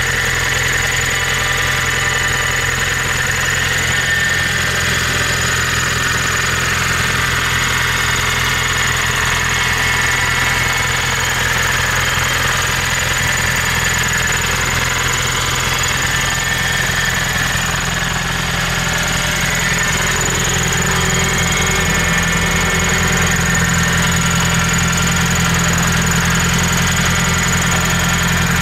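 Nissan Skyline DR30 RS Turbo's FJ20ET turbocharged inline-four idling steadily.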